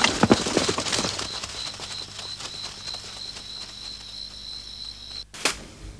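Quick footsteps of several soldiers running off through the undergrowth, then night insects chirping in a steady pulsing trill that cuts off abruptly near the end, followed by a single sharp click.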